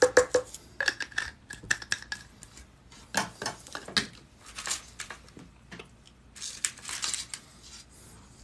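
Small metal jump rings made from paperclips clinking against one another and the work table as they are handled: irregular sharp clicks and light jingles, a few of them ringing briefly about a second in.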